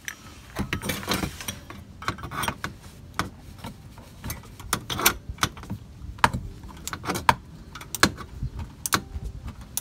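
Ratchet and oil filter socket turning to loosen an oil filter: a string of irregular, sharp metallic clicks and clinks.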